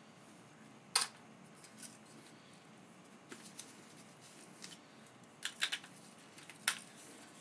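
Small sharp clicks and light handling clatter from a titanium Minolta TC-1 compact film camera as its back door is opened and a 35 mm film cassette is set into the film chamber. The loudest click comes about a second in, and a few softer clicks follow.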